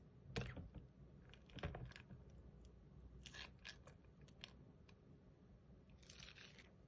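Faint sticky squelches and small clicking crackles of clear glue slime as a plastic bag is pressed and dragged through it, the two loudest about half a second and a second and a half in.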